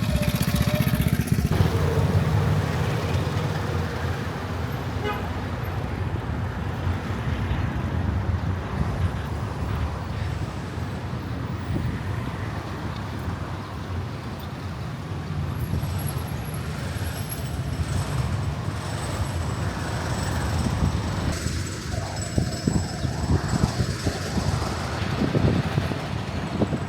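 City street traffic: a steady rumble of passing engines, with a short vehicle horn toot.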